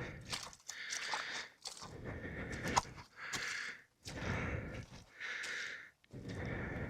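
A person breathing hard close to the microphone: quick breaths in and out, roughly one a second, each a short rush of air with pauses between.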